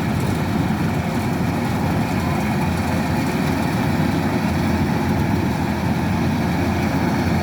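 Kubota DC-108X combine harvester's diesel engine running steadily, a constant low, dense mechanical noise with no change in pace.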